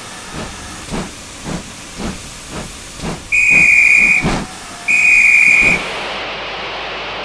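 Steam locomotive chuffing at about two puffs a second, then giving two blasts of its steam whistle, each about a second long. A steady hiss takes over near the end.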